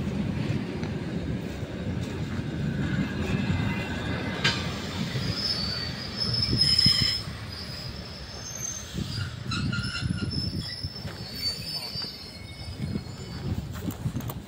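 ER2K electric multiple unit pulling out along the platform: a low steady rumble of the cars rolling, with high wheel squeals from about three seconds in until about eleven seconds, and a single sharp clack near the start of the squealing.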